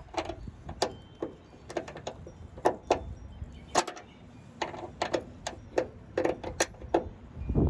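Irregular sharp metallic clicks and clinks, some in quick clusters, of a wrench working the tailgate cable bolt on a pickup tailgate, with a dull thump near the end.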